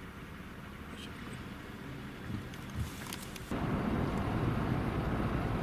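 Steady low rumble of a car driving, heard from inside the cabin, with a few light clicks. About three and a half seconds in it jumps abruptly to louder rushing wind and road noise.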